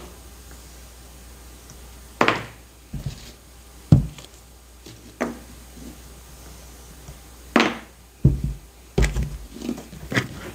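A block of clay being sliced with a potter's cutting wire, a short scraping swish twice, with a few dull thuds as the cut pieces of clay are set down on the work table.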